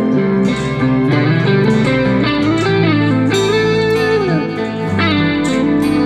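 Background music led by a guitar, with sliding notes over a steady bass line.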